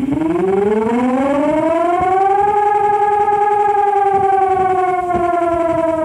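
A JBL portable Bluetooth speaker playing a recorded outdoor warning siren: a loud wail of two tones sounding together that winds up in pitch over about two and a half seconds, holds, then slowly falls toward the end.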